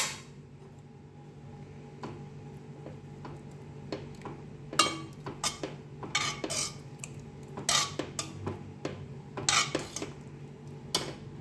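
A metal spoon stirring thick cooked khichdi in a steel pressure cooker, with irregular clinks and scrapes against the sides of the pot that start about four seconds in.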